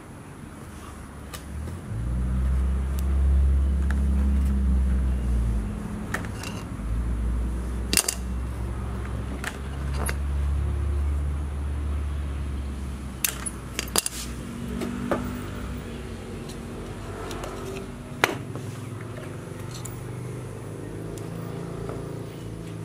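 Low engine rumble of a vehicle going by, loudest through the first half and then fading, with sharp clicks and taps of nylon trimmer line, the brush cutter's trimmer head and metal pruning shears being handled.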